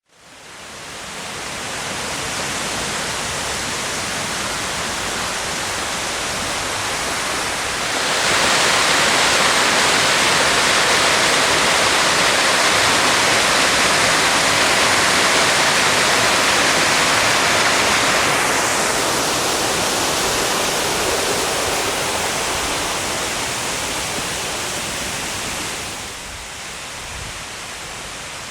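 Waterfall of the Yonako Great Falls, a steady rush of falling water. It fades in at the start, gets clearly louder about eight seconds in, eases off after about eighteen seconds and drops again near the end.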